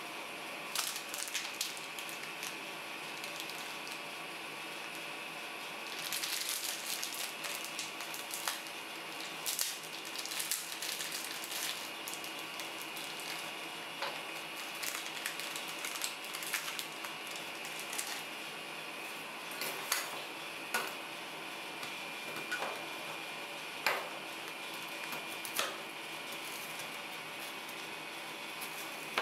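Plastic candy-bar wrapper crinkling as it is torn open and handled, followed by metal spatula blades tapping and scraping on a stainless-steel cold plate as the chocolate wafer bar is chopped. A faint steady high whine runs underneath.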